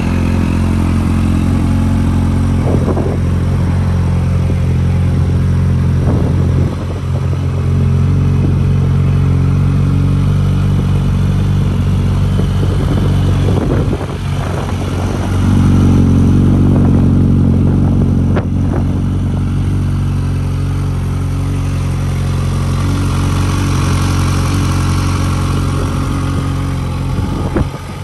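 Kawasaki Z H2's supercharged 998 cc inline-four running at a steady idle, with a few short throttle blips along the way.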